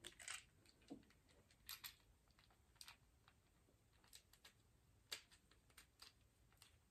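Near silence broken by faint, irregular plastic clicks and taps from a Transformers action figure being handled as its fin is wiggled loose.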